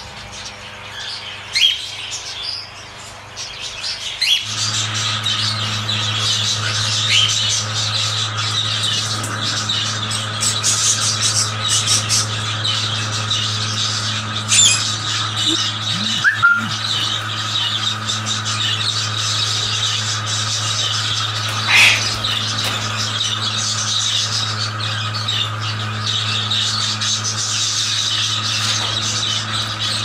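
Many caged parrots chattering and squawking, with scattered sharp calls, over a steady low hum that starts about four seconds in.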